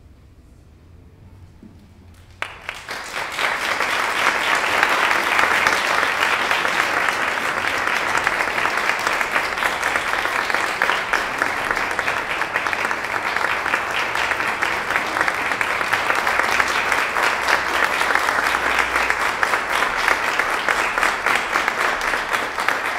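Audience applauding. It breaks out suddenly about two and a half seconds in after a brief hush, then carries on steadily.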